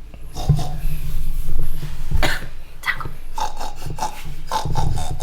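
Sleeping Akita Inu snoring with sudden, rough snorts, the uploader likening them to sleep apnea. The snorts come in two spells, one from about half a second in and one near the end.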